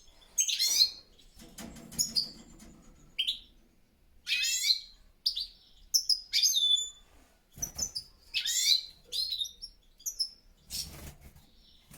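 European goldfinches (chardonnerets) calling in short, sharp bursts of high twittering chirps, some notes sweeping downward, with brief pauses between them, as males squabble over territory in an aviary.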